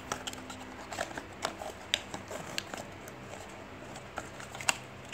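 Cardboard and paper packaging of a phone box being handled and unfolded by hand: scattered light clicks, taps and paper rustles.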